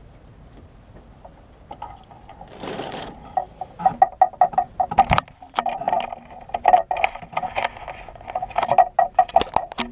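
Rapid, irregular knocks and squeaks from a plastic cooler holding an arrowed northern snakehead, as the bowfishing arrow is worked out of the fish.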